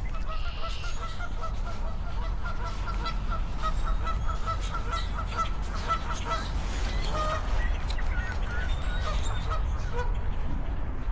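Canada geese honking: a fast run of short honks, about five a second, for roughly six seconds, then a few scattered honks.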